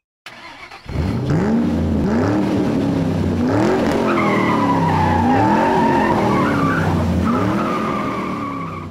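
Car engine sound effect: the engine revs hard, its pitch climbing and dropping about four times as if shifting up through the gears. Tyres squeal from about the middle onward.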